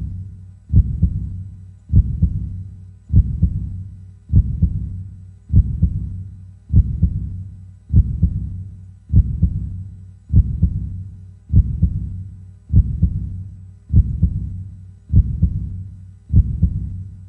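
Slow, deep bass pulse, one beat about every 1.2 seconds, each striking sharply and dying away before the next.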